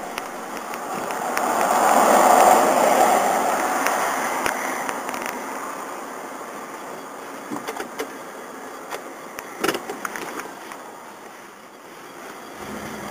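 Muffled vehicle noise picked up through a flip phone's microphone from inside a car: a rushing swell that peaks about two seconds in and slowly fades, with a few light clicks later.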